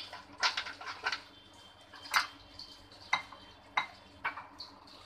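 Steel spoon stirring thick gram-flour batter in a glass bowl, clinking against the glass about once a second.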